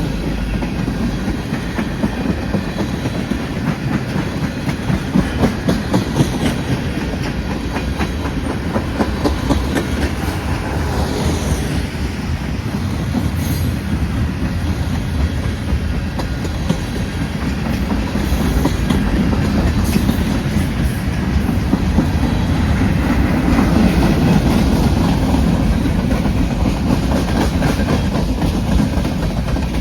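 Freight train cars rolling past close by, the wheels clacking steadily over rail joints with a continuous rumble that swells a little past the middle.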